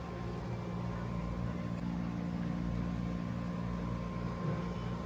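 A steady low machine hum with a faint thin whine above it, running evenly throughout.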